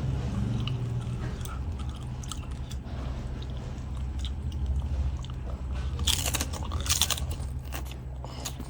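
A person chewing and crunching a mouthful of food, with many small mouth clicks and two louder crunches about six and seven seconds in, over a steady low hum.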